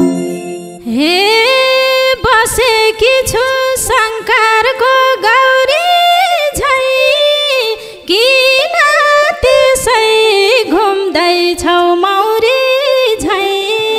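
A single voice singing an unaccompanied, ornamented folk melody on an open vowel with no words, in two long phrases with a short breath between them. It enters about a second in, after the band has stopped.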